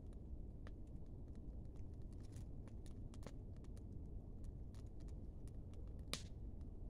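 Campfire crackling: irregular small pops and ticks over a low steady rumble, with one sharper snap about six seconds in.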